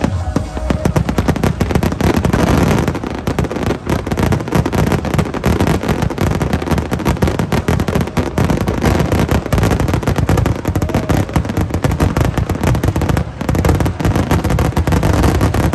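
Fireworks finale barrage: aerial shells bursting in a rapid, unbroken string of loud reports, many a second, with no let-up.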